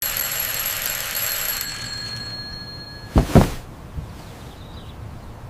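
A bright, bell-like ringing over a hiss that fades away in the first two seconds, then two heavy thumps in quick succession a little after three seconds in.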